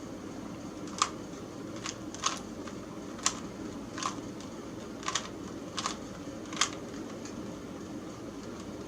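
Plastic Rubik's Cube layers being twisted: about nine short, sharp clicks at irregular intervals over a steady low background hum.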